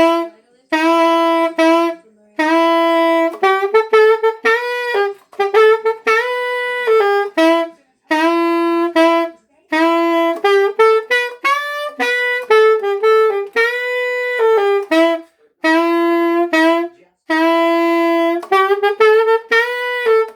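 Selmer Mark XXX alto saxophone playing a run of short melodic phrases, a few notes each, with brief breaths between them.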